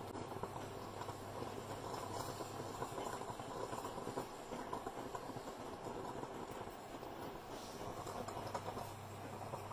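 Stainless-steel moka pot heating on an induction hob: a steady crackling hiss of the water in the pot over the hob's low hum.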